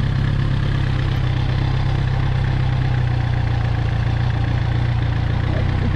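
Suzuki GSX-R 1000's inline-four engine running steadily at low revs, with no revving.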